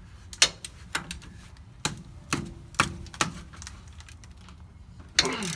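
Scattered sharp metallic clicks and knocks, about six in the first three seconds: a socket wrench being fitted to and worked on a truck's brake caliper bracket bolts to break them loose.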